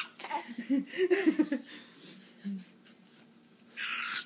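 A toddler's soft voice, giggly sounds during the first second and a half. Near the end comes a short steady hiss of a Reddi-wip aerosol whipped cream can spraying cream into the child's mouth.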